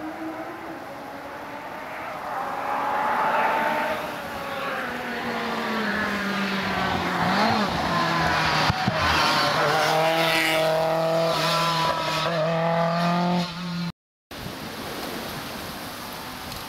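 Historic rally car engine at high revs on a stage, its pitch sliding down and wavering as it comes through, with some tyre noise, getting louder toward the end. It cuts off suddenly about fourteen seconds in, and a quieter engine sound follows.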